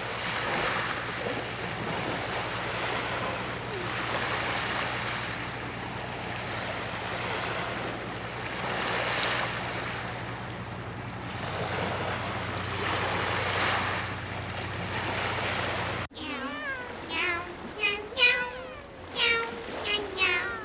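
Small waves washing against a seawall, a surf sound that swells and fades every few seconds. About sixteen seconds in it cuts off, and a quick run of cat meows follows.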